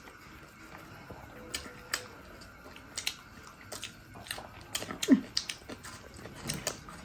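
Close-miked eating sounds: wet chewing and lip smacks heard as scattered sharp clicks, with one brief falling vocal 'mm' about five seconds in.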